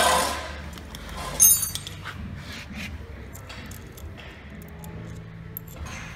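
Steel bolts and frame parts being handled and fitted by hand, small metallic ticks and knocks with one sharp ringing clink of metal about a second and a half in.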